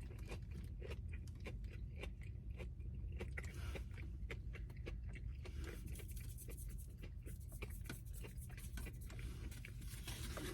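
Close-up chewing of a crispy fried mozzarella stick: a continual run of soft crunches and mouth clicks over a steady low hum.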